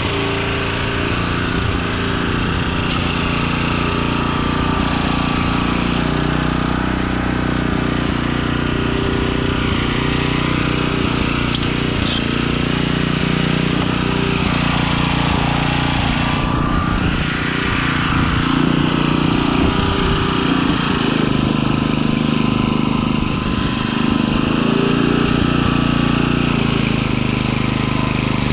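Small gas engine of a garden tiller running steadily under load as its tines churn the soil of a raised bed, the engine note shifting a little as it digs in.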